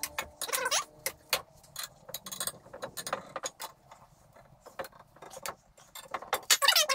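Irregular metal clicks and clinks of bolts, washers and a hand wrench as the nuts are fitted and tightened on the steel handle mount of a lawn mower jack, with a louder metallic rattle near the end.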